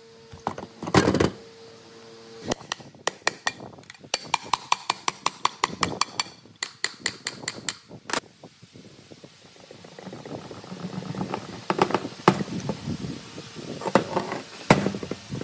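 Metal taps and clinks from a rusted electric motor being taken apart, including a quick run of light ticks. In the second half, scraping and knocking as the rotor is worked out of the stator, with a sharp click near the end.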